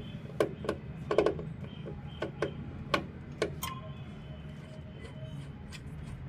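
A run of about eight sharp clicks and taps in the first four seconds, some in quick pairs, over steady background music.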